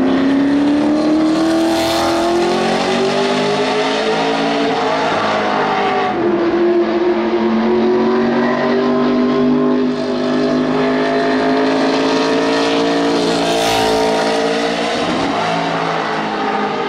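Race truck's engine pulling hard around the banked oval, its pitch climbing steadily, easing briefly about six seconds in, then climbing again before dropping off near the end.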